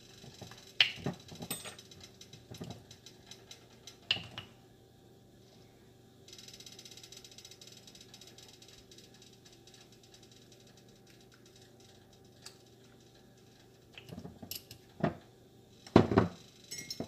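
Plastic coffee scoop clicking and knocking against a cloth coffee strainer and the pot rim as scoops of ground coffee go in. The taps come in scattered groups in the first few seconds and again near the end, with a quiet stretch between.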